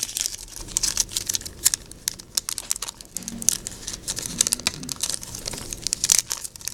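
Yu-Gi-Oh! trading cards being handled and flipped through one over another: a fast, irregular run of light clicks and card-edge snaps, with some crinkling.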